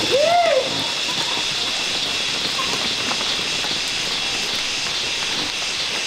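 Steady outdoor hiss with a high, even insect drone throughout. Right at the start, one short call rises and then falls in pitch.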